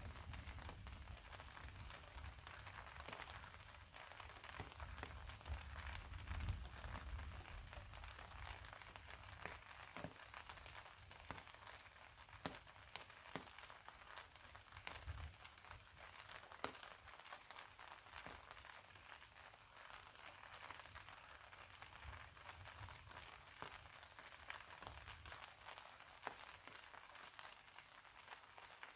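Faint, steady rainfall with scattered single drops ticking close by. A low rumble sits under it for the first several seconds and briefly again later.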